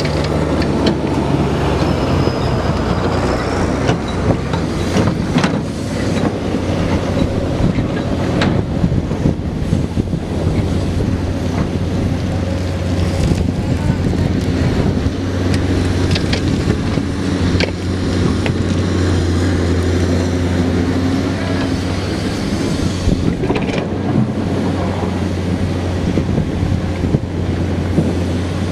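Komatsu PC210 hydraulic excavator's diesel engine running steadily with a deep hum, with scattered sharp knocks as gravel is loaded into a truck.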